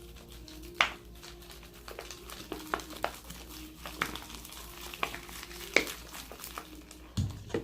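Homemade slime being stirred and worked in a bowl as activator is mixed in, making irregular sharp clicks and wet squelches, the loudest about a second in and near six seconds.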